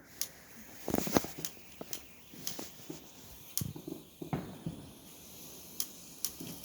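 Low-noise consumer fireworks still going, giving off faint, irregular sharp pops and crackles every second or so over a soft hiss.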